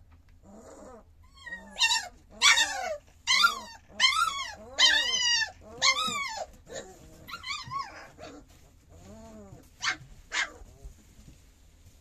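Three-week-old puppy whining in a string of rising-and-falling cries, about two a second, loudest in the middle, then fainter cries and two short sharp yelps near the end.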